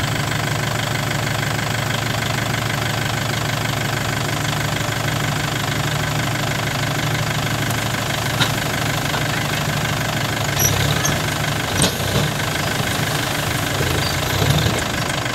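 Diesel tractor engine running steadily while its hydraulics tip the trailer and a load of wet soil slides out, the engine note shifting about ten seconds in. A couple of brief thuds as clods drop, about eight and twelve seconds in.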